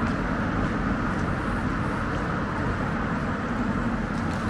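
Steady rumble of city traffic, with no single vehicle standing out.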